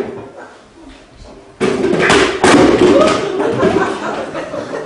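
A thump dying away at the start, then, about a second and a half in, a sudden burst of loud voices that carries on to the end.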